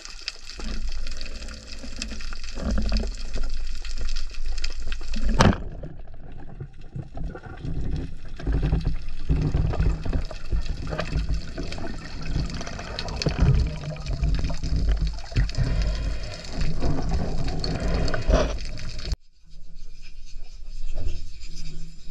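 Underwater sound heard through an action camera's waterproof housing: water rushing and sloshing with a low rumble and an even hiss. The sound changes abruptly about five seconds in, and again with a short drop near the end.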